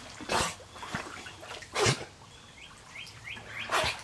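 A black Labrador retriever swimming in a pool, making three short noisy bursts of breath and water about a second and a half apart. In the second half a bird chirps quickly several times.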